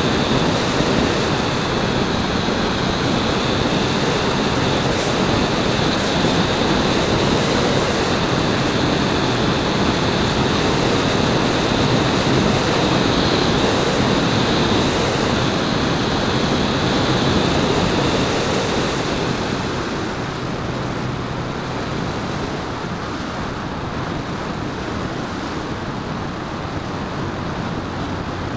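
Steady rush of airflow and motor-and-propeller noise picked up by the onboard camera of a radio-controlled Edge 540 aerobatic model plane in flight, with a faint high whine. The sound gets quieter and duller about two-thirds of the way through.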